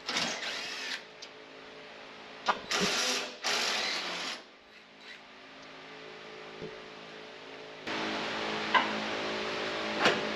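Cordless impact driver with a socket rattling in about four short bursts over the first four seconds or so, backing out half-inch bolts from a wood chipper's sheet-metal engine enclosure. Near the end a steady hum sets in, with a couple of sharp clicks.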